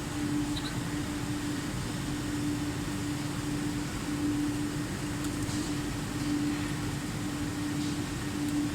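Hydraulic busbar bending machine's pump unit running idle: a steady hum with a held low tone that swells and fades about once a second, over a hiss.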